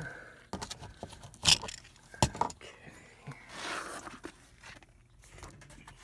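Handling noises of hands working among plastic car trim and seat-belt hardware: scattered clicks and knocks, two sharp ones about a second and a half and two seconds in, and a rustling scrape near the middle.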